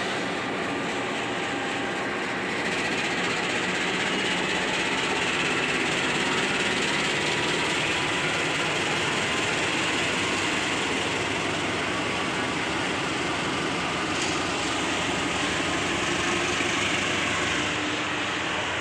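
KAI CC 206 diesel-electric locomotive running under power as it hauls a passenger train slowly past, a steady engine and rolling-stock noise.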